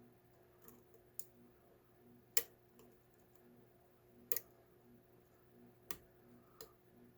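Lock pick working the pins of a Gobrico double-cylinder deadbolt under very light tension: about six sharp, irregular clicks as the pins spring and click down, the loudest about two and a half seconds in.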